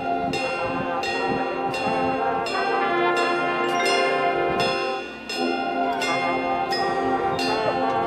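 Marching band playing: held brass chords come in over steady percussion strikes about twice a second, with ringing, bell-like tones. The music breaks off briefly about five seconds in, then the chord returns.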